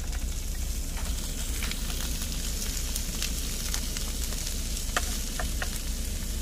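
Sausages and diced onions and carrots sizzling in an electric skillet as the vegetables go in, with a few light taps of a spoon against the tub and pan.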